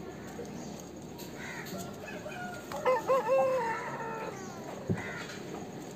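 Aseel rooster crowing once, starting about three seconds in: a wavering opening followed by a long held note that slowly falls away. A short knock follows near the end.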